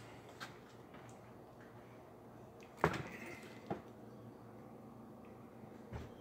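Quiet room tone with a few scattered knocks and clicks, the loudest a sharp clunk about three seconds in and a lighter one just under a second later.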